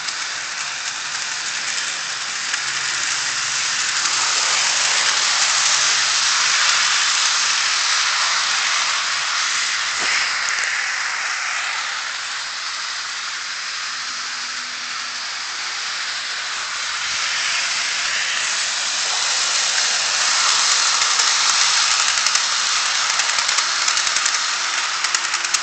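Model train, a BR52 steam locomotive hauling a K5 railway gun, running on sectional track on a tile floor: a steady rattling hiss of wheels and motor. It grows louder twice as the train comes round close by.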